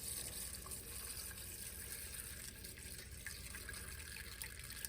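Melted honey and beeswax trickling faintly through doubled cheesecloth into a strainer pan, a steady thin liquid running sound.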